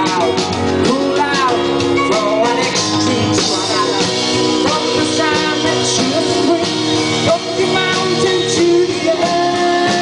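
Live band playing through a PA: a lead voice singing over strummed acoustic guitar, electric bass and drum kit.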